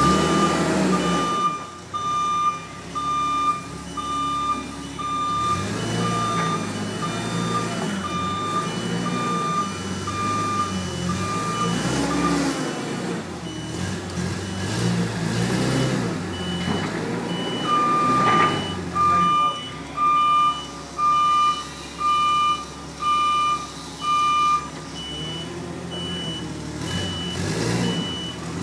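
Vehicle reversing alarm beeping steadily, about one and a half beeps a second, over a running engine; the beeping stops for several seconds in the middle and starts again, and a fainter, higher beep goes on under it.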